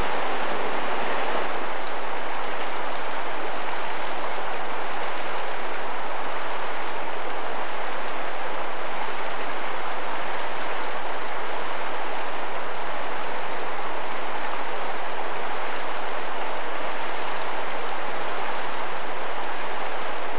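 Mountain creek water rushing steadily over rocks.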